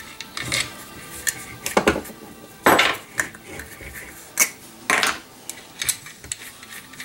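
Metal sway bar end links and small metal parts clinking and knocking on a workbench as they are handled and set down, a string of irregular sharp clinks, the loudest a little under three seconds in.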